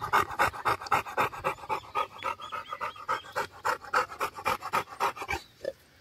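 American bully dog panting rapidly and steadily, about four to five breaths a second, winded from exercise; the panting stops shortly before the end.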